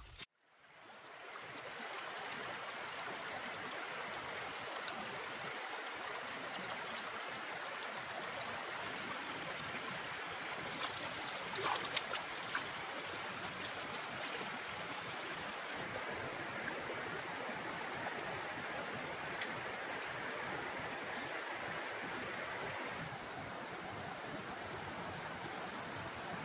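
Shallow stream rushing steadily over rocks, fading in over the first second or two. A few brief clicks near the middle.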